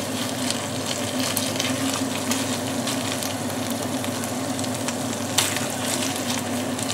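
Minced meat sizzling as it fries in a pan, stirred with a wooden spoon that scrapes and taps against the pan now and then, one louder scrape about five seconds in. A steady low hum runs underneath.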